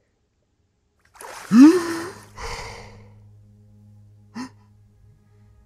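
A cartoon ape character gasping for air as it surfaces from underwater: a loud, sharp gasp sliding upward in pitch about a second and a half in, then a second heavy breath. A low steady hum runs under it.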